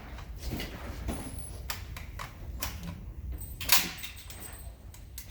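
A few scattered sharp clicks and knocks, the loudest nearly four seconds in; no burst of gunfire.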